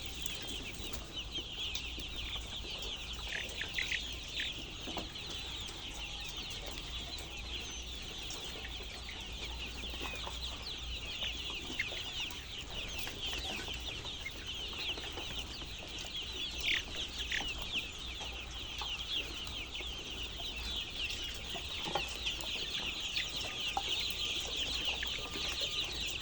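A flock of chicks peeping continuously, many short high chirps overlapping, with a few louder chirps standing out.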